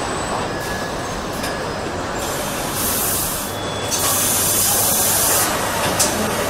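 Car assembly line machinery running: a steady mechanical rumble and clatter with several bursts of compressed-air hissing, the longest starting about four seconds in and lasting over a second.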